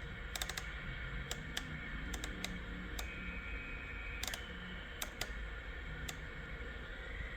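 Irregular clicking of the SBE Sidebander V CB radio's channel controls being stepped through, a dozen or so sharp clicks, some in quick pairs, over a low steady hum.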